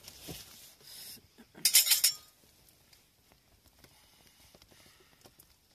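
A person eating steaming hot food from a metal pot in a cold tent: breathy rushes of air, the loudest a short burst about two seconds in, then faint scattered light clicks of a metal utensil.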